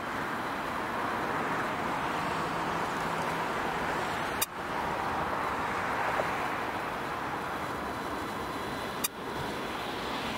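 Steady jet engine noise from a Japan Airlines Boeing 777-300 taxiing, with two brief clicks about four and a half and nine seconds in.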